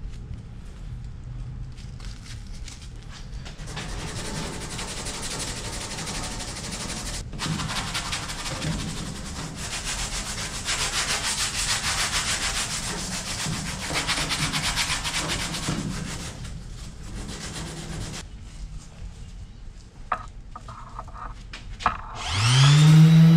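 Hand sanding of cured Bondo body filler with 80-grit sandpaper on a hand-held pad: steady scratchy rubbing, strongest in the middle. About a second before the end an electric random orbital sander starts up, its motor rising in pitch to a loud steady whine.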